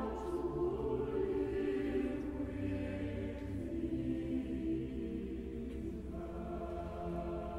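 Boys-and-men church choir singing a carol, holding long, soft notes that ring on in the stone chapel's echo.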